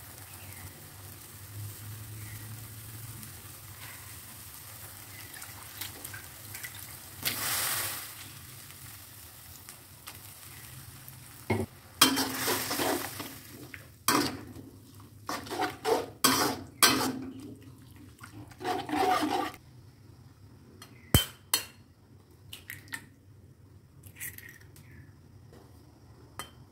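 A spatula stirring and scraping food around a hot wok, with frying sizzle. It starts as a quiet sizzle with one short louder swell, then from about halfway turns into a run of loud, uneven scraping and clattering strokes that thin out to a few clicks near the end.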